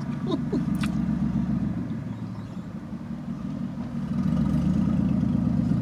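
Car engine idling with a steady low hum, which grows louder about four seconds in.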